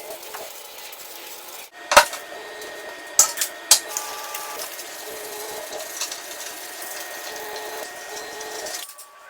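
Workshop handling sounds: a sharp knock about two seconds in, two more about a second later, and a steady noise between them.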